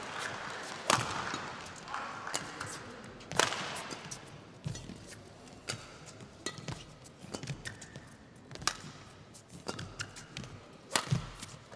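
A badminton rally: racket strings striking the shuttlecock in sharp cracks every second or two, with fainter footfalls on the court between them.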